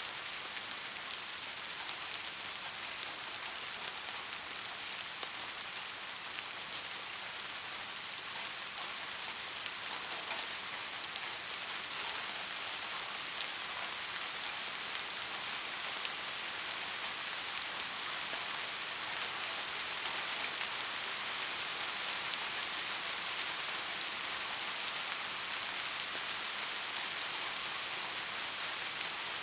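Steady rain falling on surfaces, an even hiss with fine scattered drop patter.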